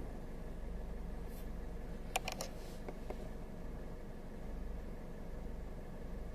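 Second-generation Subaru BRZ's 2.4-litre flat-four idling steadily, with a short cluster of sharp clicks about two seconds in and two fainter ticks a second later.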